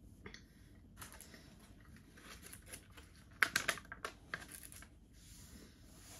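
Capri-Sun foil drink pouch crinkling as it is handled and its straw is torn free of its wrapper, in a run of crackles that peaks about three and a half seconds in.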